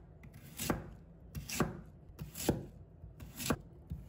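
Chinese cleaver slicing a white radish into thin slices on a wooden cutting board, the blade knocking on the board about once a second, four times.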